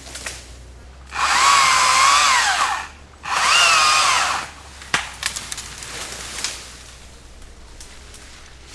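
Two-stroke chainsaw revved hard in two bursts of about a second and a half each, cutting through small trees, its pitch sagging and recovering under load, idling in between. Afterwards come a few sharp snaps and cracks.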